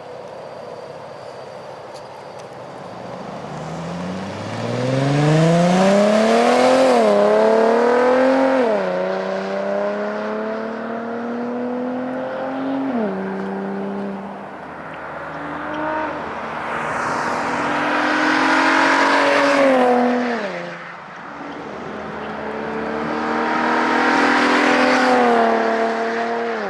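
2012 Infiniti G37x's 3.7-litre V6 through an ISR single-exit exhaust, accelerating hard in repeated passes: the revs climb and drop back at each upshift, and the exhaust note grows loud as the car goes by. It is loudest three times, the first about a quarter of the way in.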